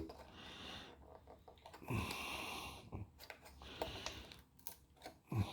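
Faint, scattered clicks and light handling noise from working a part of a Wii Fit board's plastic and circuit board loose, with a short soft hiss about two seconds in.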